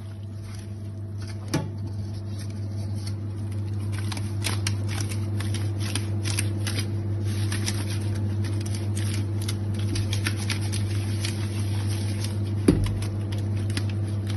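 Wet, squishy crackling of raw fish pieces being rubbed and turned by hand in a colander, growing denser a few seconds in. There are two sharp knocks against the colander or sink, about a second and a half in and near the end, over a steady low hum.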